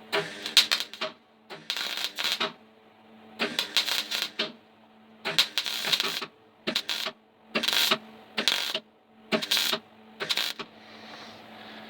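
An arc welder laying short crackling bursts of weld on thin car body steel, about nine in a row, each under a second, over a steady hum. The welder has just been turned down because it was blowing holes in the panel, so the weld goes on in short stitches.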